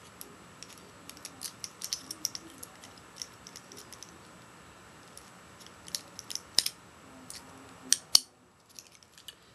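Small metallic clicks and taps of a brass padlock and its push key being handled, with a few sharper clicks about six to eight seconds in.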